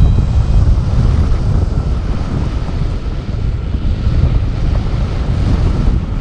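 Wind buffeting a paraglider's helmet- or harness-mounted GoPro microphone in flight: a loud, steady, low rumble of airflow.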